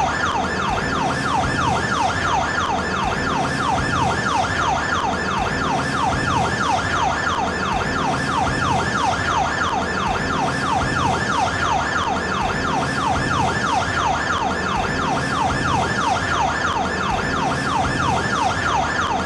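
Siren of a Japanese emergency-room vehicle (ER car) sounding a fast yelp: a tone that sweeps rapidly downward and repeats several times a second, steady throughout.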